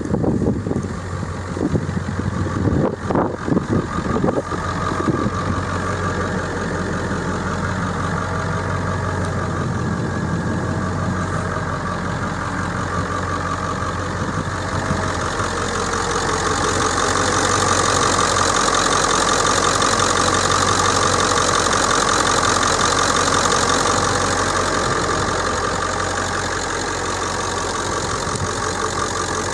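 1999 Ford F250 Super Duty's 7.3-litre V8 diesel engine idling steadily with diesel clatter. A few irregular knocks come in the first few seconds, and the engine grows louder from about halfway through before easing off again near the end.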